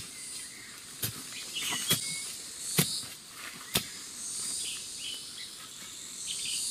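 Long metal digging bar jabbed into forest soil: a run of sharp strikes, about one a second, through the first four seconds. Insects chirr and birds chirp throughout.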